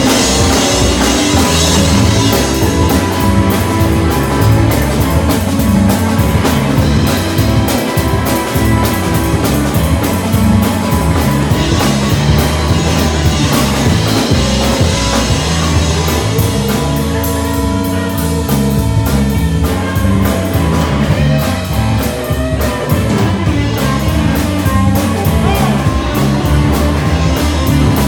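Live blues band playing an instrumental stretch of a fast jump-swing song, with a drum kit keeping a steady beat and an electric guitar over it.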